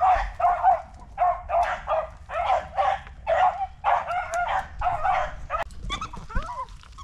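Beagle hound baying, a steady run of loud, rapid barks at about two a second that breaks off about five and a half seconds in.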